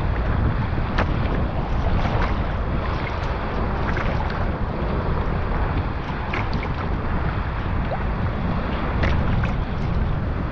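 Wind of about force 3–4 buffeting the microphone with a steady low rumble, while water splashes and sloshes around a sea kayak paddling in open sea, in short splashes every second or two.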